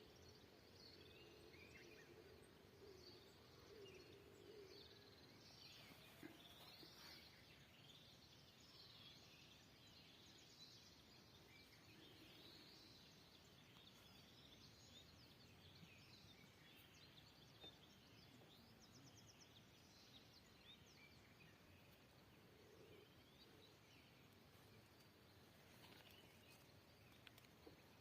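Faint rural ambience with many small birds chirping and trilling throughout, and a faint low hum during the first five seconds.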